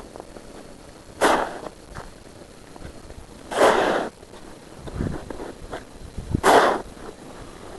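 Snow shovel scooping and throwing snow in three strokes about two and a half seconds apart, each a short, hissing scrape, with softer thuds between them.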